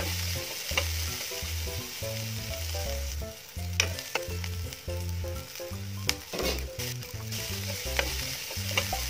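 Chopped onion and garlic sizzling in hot oil in a nonstick pan as they sauté and turn golden, with a spatula scraping and tapping the pan a handful of times.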